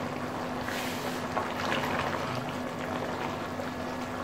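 Mutton simmering in its broth in an aluminium pot: a steady bubbling hiss with a low steady hum beneath it. A wooden spoon stirs through it near the end.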